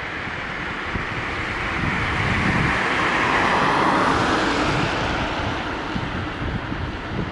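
A car passing by: its road and tyre noise swells to a peak about four seconds in and fades away, with wind buffeting the microphone.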